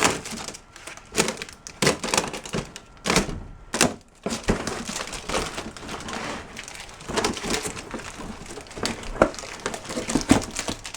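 Cardboard box being opened and rummaged through by hand: flaps and paper crinkling and rustling, with scattered knocks and bumps.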